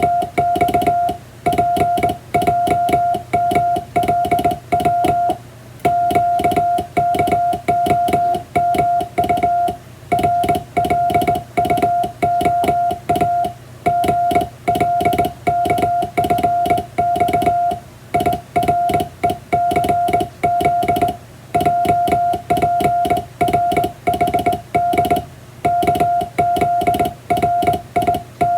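Morse code sent by hand on a straight (vertical-swing) telegraph key: a steady mid-pitched beep keyed on and off in dots and dashes, with a click at each keying and longer pauses between groups every few seconds.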